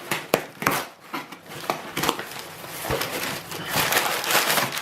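Cardboard delivery box and its packaging being opened by hand: several sharp clicks and snaps, then crinkling and rustling that grows louder near the end.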